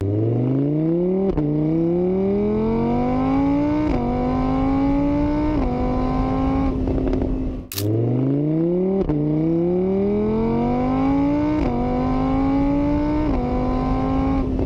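Car engine accelerating up through the gears, its pitch rising and dropping back at each of three shifts before holding steady. The whole run plays twice, with a brief click between the two.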